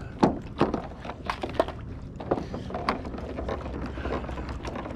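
A string of irregular knocks and clicks from fishing gear being handled aboard a kayak. The loudest knock comes just after the start.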